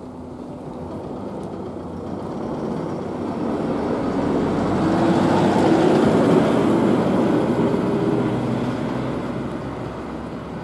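A vehicle passing close by: a rumbling noise that swells to its loudest about six seconds in and then fades away.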